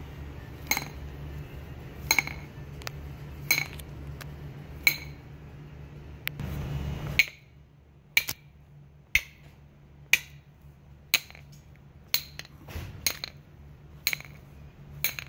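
Stainless steel pipe rapped end-down again and again on a concrete floor, sharp metallic clinks with a short ring roughly once a second, knocking a taped bundle of brush fiber up into the pipe. A low hum underneath stops about halfway through.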